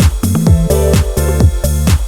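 Background electronic dance music with a steady beat of about two strokes a second and sweeping bass notes.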